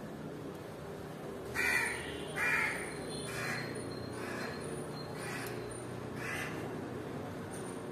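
A bird calling repeatedly in short harsh calls about once a second. The two calls near two seconds in are the loudest, and the later ones grow fainter.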